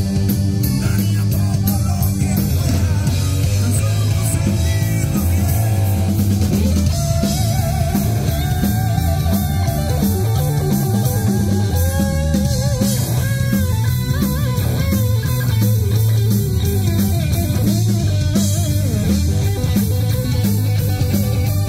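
Live rock band playing loud: electric guitar, bass guitar and drum kit over a heavy low end. About seven seconds in, a lead line of bending, wavering notes comes in on top.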